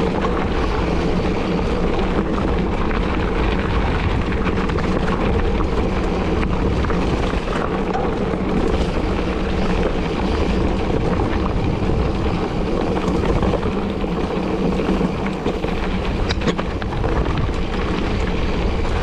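Steady rush of wind over the microphone of a camera riding along on a moving mountain bike, with the rolling noise of the bike underneath it.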